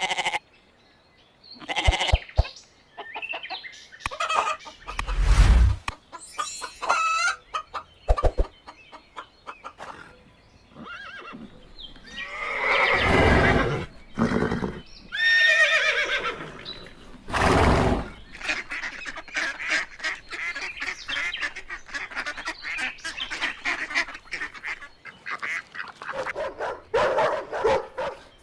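Farm poultry calling in a run of short clips: separate loud calls with changing pitch, then a long stretch of rapid, crowded chattering in the second half.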